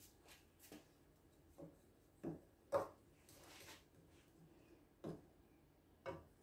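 A metal fork tapping and clinking against the rim and inside of a saucepan of melted chocolate, a few light separate taps, the loudest a little under three seconds in, as sweets are dipped and the excess chocolate is knocked off.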